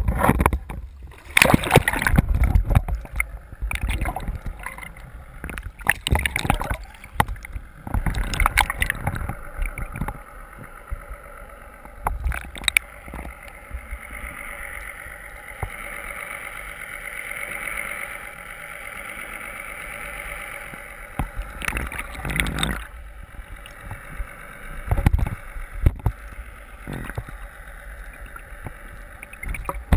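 Water sloshing and gurgling around an action camera dipped in the sea, with irregular bumps and knocks. For several seconds in the middle, a steady hum holds.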